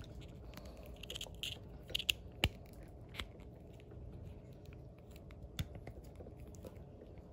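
Faint handling noise of a plastic AirPods charging case and a micro-USB cable plug being worked against its charging port: rubbing and scratching, with a few sharper clicks about two to three seconds in and one more a little past five seconds.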